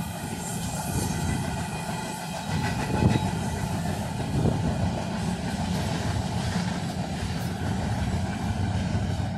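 Freight train cars rolling past on the rails: a steady rumble with wheel clatter, and a louder knock about three seconds in.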